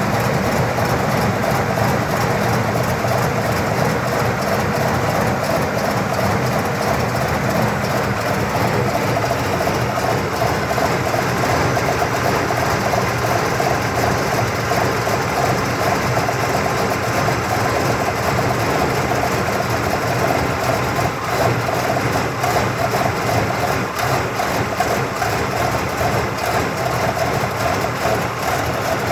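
1979 Cadillac Coupe DeVille engine idling cold with no throttle, a rough, lumpy idle that runs unevenly. The roughness only appears when the car is cold-started in cool weather.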